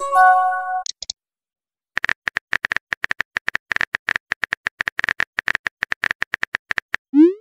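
A messaging-app notification chime at the start. Then comes a rapid run of phone-keyboard typing clicks, about ten a second for some five seconds, as a reply is typed out. Near the end there is a short rising swoop, the app's send sound.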